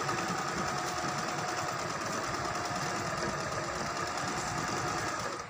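Juki Liza 20Z electronic sewing machine running steadily under pedal control, its needle sewing a straight stitch through fabric with a rapid even rhythm. It stops near the end.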